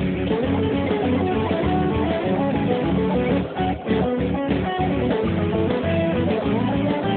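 Music led by guitar, with a moving melody line over a steady bass part.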